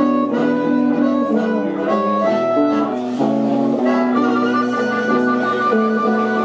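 Live band playing an instrumental passage: guitar accompaniment under a melody line of held notes stepping up and down.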